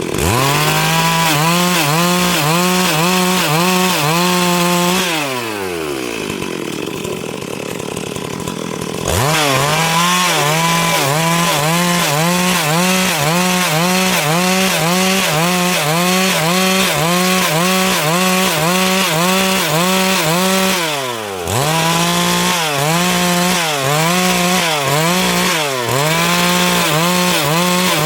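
Stihl MS 382 two-stroke chainsaw at full throttle cutting wood. The engine falls back to idle about five seconds in, revs up again around nine seconds, and dips briefly once more near the end.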